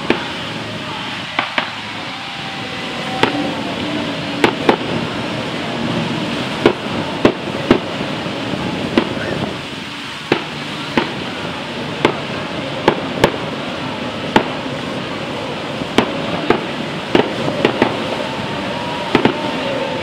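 Steady din of dozens of motorboats' outboard engines running at full speed together, broken by sharp cracks at irregular intervals, about one a second.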